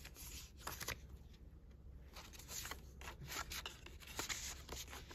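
Soft rustling and light clicks of paper and stickers being handled and shuffled through.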